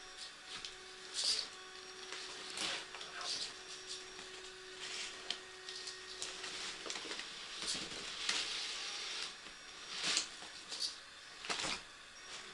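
Redcat Rockslide RS10 XT RC rock crawler's electric motor and gearing whirring in irregular spurts as it crawls the course, with sharp knocks and scrapes a few times.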